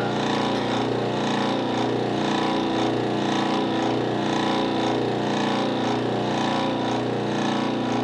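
Portable refrigerant recovery machine's compressor running steadily on a second pass, pulling the last refrigerant vapour out of an air-conditioning system after the pressure crept back up 1 or 2 PSI: refrigerant still boiling out of the compressor oil.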